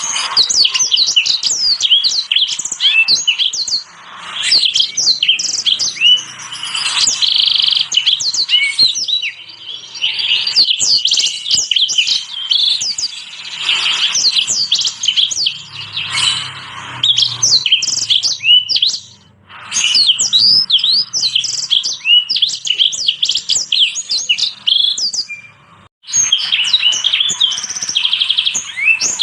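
Small finches singing: a dense, fast stream of high chirps and twitters, with a couple of brief breaks.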